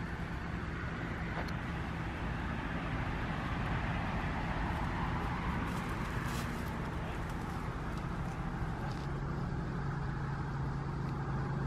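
Steady outdoor background noise with a low hum that grows stronger near the end, and a few faint clicks around the middle.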